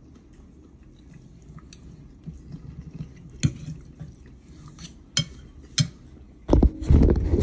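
A fork clinking against a ceramic dinner plate a few times while food is taken from it. Near the end comes a louder low rumbling thud.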